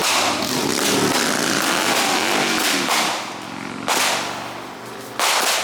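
Consumer fireworks going off, a multi-shot cake firing with loud hissing whooshes and cracks: one long burst over the first three seconds, then shorter ones about four seconds in and near the end.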